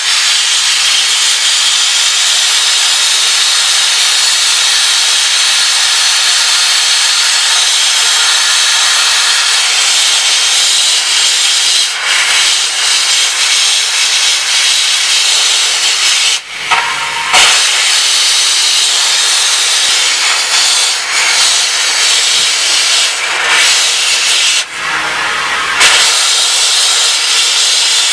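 Abrasive blaster with a 6 mm tungsten carbide nozzle firing crushed glass from a pressure pot fed by a diesel compressor: a loud, steady hiss of air and grit. The blast stops briefly twice, about 16 seconds in and about 25 seconds in, letting a low hum come through before it starts again.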